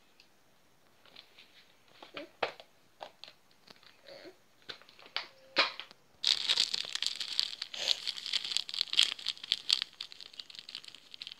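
Thin plastic bag of flour crinkling as it is handled and tipped to pour. First a few scattered light rustles and clicks, then dense, continuous crinkling from about halfway through.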